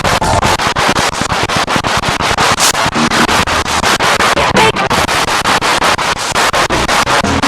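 Spirit box sweeping rapidly through radio stations: loud static chopped into quick, even pulses about six or seven a second, with brief fragments of broadcast sound caught between the steps.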